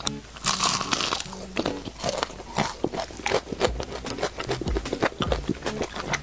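A loud crunchy bite into crispy food, close to the microphone, about half a second in, followed by chewing with many small crunches. Soft background music plays underneath.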